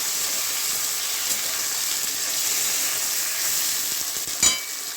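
Eggplant strips sizzling steadily in hot oil in a kadai as they are stirred, with one sharp ringing metal clink near the end.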